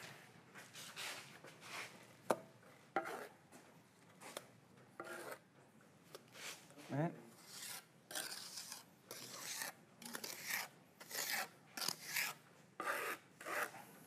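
A mason's trowel scraping and slapping wet mortar onto a plaster wall in a string of short, irregular strokes, loading a patch of the base coat.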